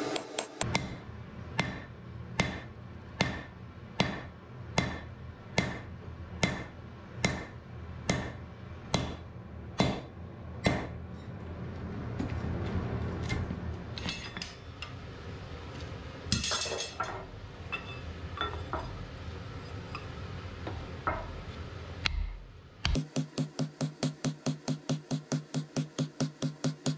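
Hand hammer striking a handled punch driven into red-hot wrought iron on an anvil, punching the axe's eye hole. The blows are steady, about one every 0.8 s with a metallic ring. After a looser stretch of scattered clinks, a faster run of about four lighter strikes a second comes near the end, while the eye is drifted over a swage block.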